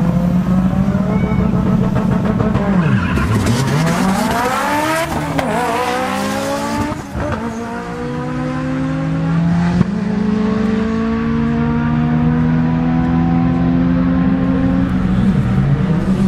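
Two import drag cars held at revs on the start line, then launching and accelerating away, the engine notes climbing and dropping back through several gear changes from about three seconds in. Steady engine tones of other idling cars continue through the second half.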